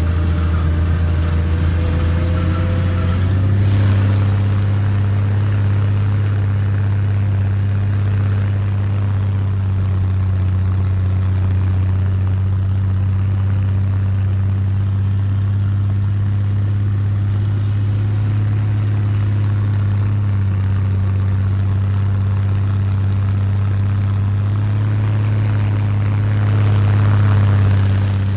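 Snowcat engine running under load as the machine climbs, heard from on board: a steady low drone that steps up a little in pitch about three seconds in, and again with a slight swell near the end.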